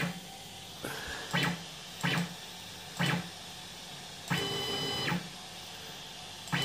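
Stepper motors of a home-built 3D printer making short moves. There are four brief whirs in the first three seconds, then a steady whine of about a second a little past the middle, and another starts as it ends.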